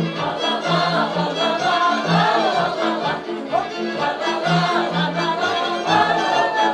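Slovak folk song sung by a group of voices over a folk band, with a low bass line repeating in a steady beat.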